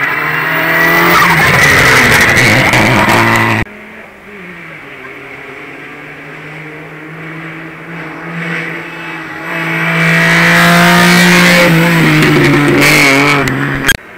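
Hillclimb race cars at full throttle on a wet road: one car passes loud and close, its sound cut off abruptly about four seconds in, then a second car is heard approaching, its engine building to a loud, high note as it passes, before it too cuts off suddenly near the end.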